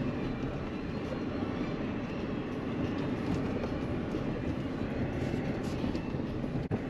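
Cabin noise of a car driving slowly over a rough gravel track: a steady rumble of tyres on loose stones and rutted dirt, with small rattles and clicks.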